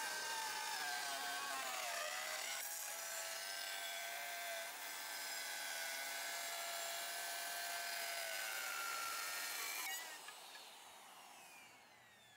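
Black & Decker plunge router running at speed as it cuts along the edge of wooden boards: a steady high whine over the noise of the cut. About ten seconds in the cutting stops and the whine falls away as the motor winds down.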